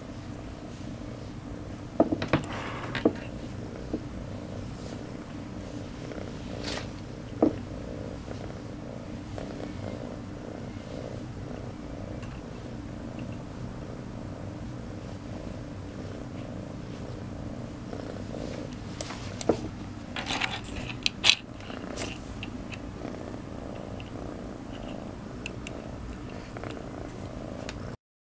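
Kitten purring loudly and continuously while being petted, a motorboat-like rumble pulsing evenly with its breathing. A few sharp clicks and rustles of handling sound about two seconds in and again around twenty seconds in, and the purr cuts off abruptly near the end.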